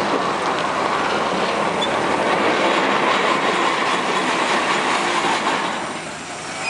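Steam dragline working: its engines and cable drums run steadily with a noisy hiss and faint clicking, quieting briefly near the end.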